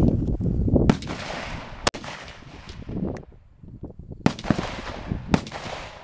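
Four sharp gunshots about a second or more apart, each trailing off in a long echo.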